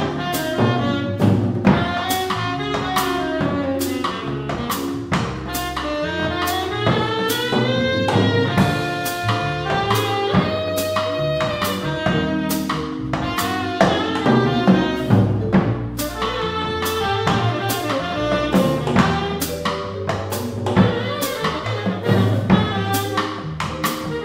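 Small jazz combo jamming: a saxophone plays a melody of runs and held notes over keyboard, upright bass and a drum kit with frequent cymbal strokes.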